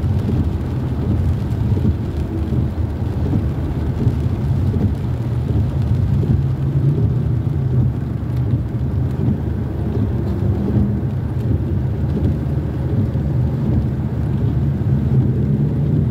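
Steady low rumble inside a car's cabin: the engine running and tyres on a rain-wet road, with rain on the car.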